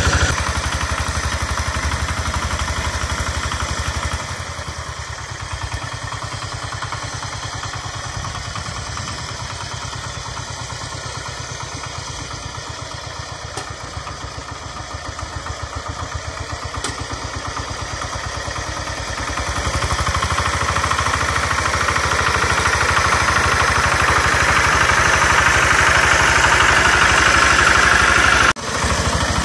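Kentavr МБ 1010ДЕ-6 walk-behind tractor's single-cylinder diesel engine running steadily under load while its rotary tiller churns wet soil. The sound grows fainter through the middle as the machine moves off, then louder again when it comes close, with a brief break just before the end.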